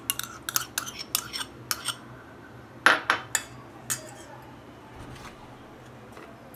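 A metal spoon clinking and scraping against a stainless-steel bowl and a plastic container as yogurt is spooned onto raw mutton. There is a quick run of small clinks over the first two seconds, a louder group about three seconds in, and one more clink about a second later.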